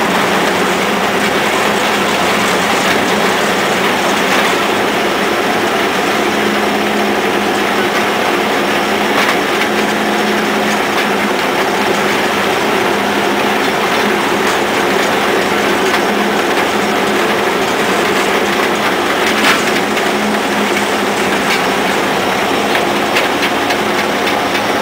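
Drive machinery of a 1930 Moore Speedcrane running: its Cummins diesel engine, with the spinning ring gear and drums of the gear train giving a steady mechanical clatter and a few light knocks.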